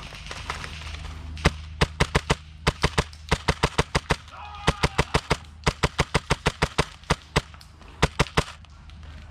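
Airsoft gunfire: rapid strings of sharp shots in several bursts, starting about a second and a half in.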